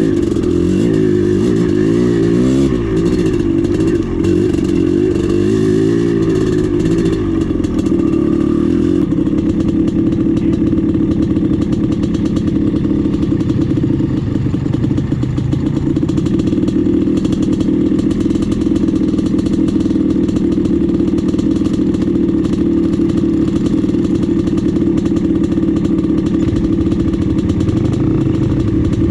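Dirt bike engine running as the bike is ridden, its pitch rising and falling for the first eight seconds or so, then holding steadier.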